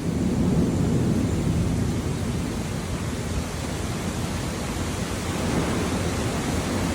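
Heavy rain falling steadily in a thunderstorm, with a low rumble of thunder that is strongest in the first second or two.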